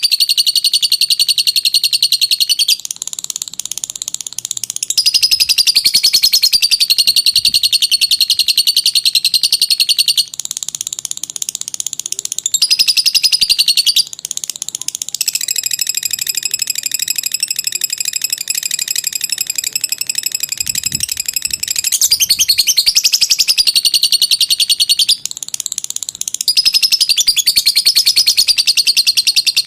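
Lovebird singing its long 'ngekek' trill: a loud, very rapid, high-pitched chattering that runs on without pause. It comes in phrases of a few seconds each that switch abruptly in pitch and loudness.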